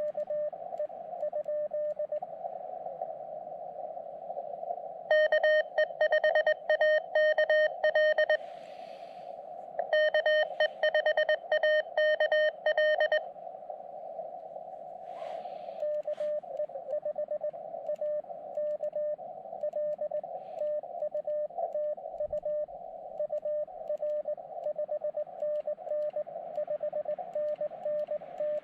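Morse code (CW) exchange on a portable QRP transceiver, an Elecraft KX2: receiver hiss through a narrow CW filter, with the operator keying two loud runs of sidetone about five to thirteen seconds in, then a weaker station's Morse replies coming through the noise from about sixteen seconds on.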